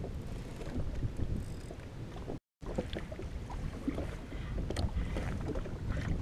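Wind buffeting the microphone over water lapping against the hull of a drifting jet ski, with scattered light ticks. The sound cuts out completely for a moment about two and a half seconds in.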